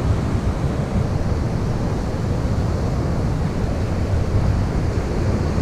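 Wind buffeting the microphone as a steady low rumble, over the continuous wash of surf breaking on the beach.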